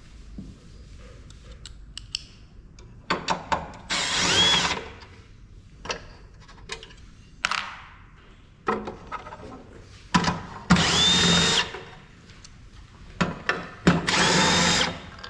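Cordless power drill-driver backing screws out of a thermal printer's housing in three short runs, each whine rising in pitch and then holding. Clicks and light clatter of the bit and parts come between the runs.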